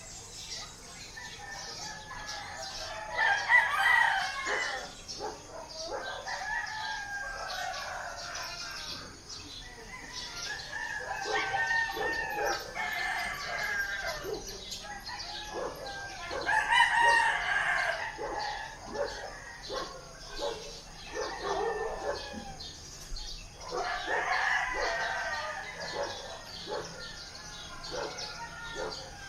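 Roosters crowing again and again, about five long crows, some overlapping at different pitches, the loudest about 3 s and 17 s in.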